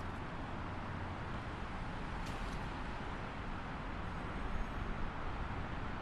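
Steady rush of highway traffic, with a brief high hiss about two seconds in.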